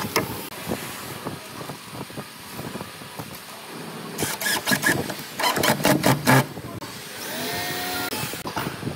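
DeWalt 20V cordless driver running in short bursts, driving screws through steel corner brackets into timber. There is a brief burst right at the start, then a run of loud bursts from about four to six and a half seconds in, over a steady background noise.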